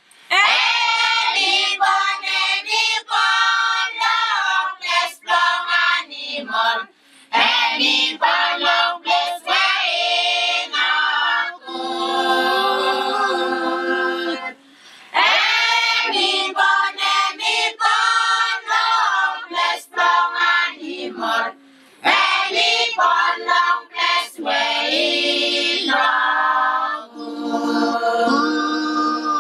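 A group of mixed voices singing a Christmas carol together, unaccompanied, in phrases broken by short breathing pauses about every seven seconds.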